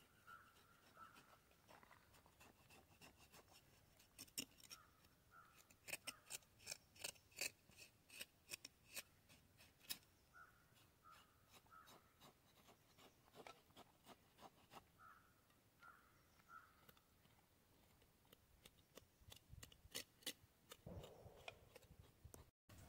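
Faint scraping and sharp clicks of a kitchen knife worked along a whole vaala fish on a wooden board, in quick irregular strokes that come thickest about a third of the way in. Faint short chirps repeat in small groups in the background.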